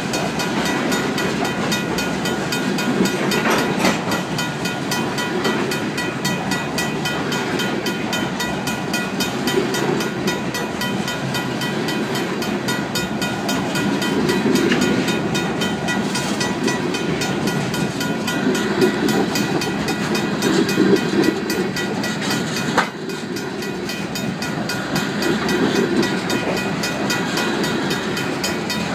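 Freight train of covered hopper and tank cars rolling past, its wheels clicking over the rail joints. A mechanical grade-crossing bell rings steadily over it.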